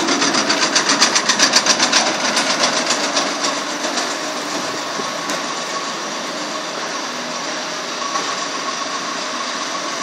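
Belt-driven hammer mill wood chipper with its electric motor running: a fast, regular knocking for the first few seconds that fades into a steady whir with a faint whine.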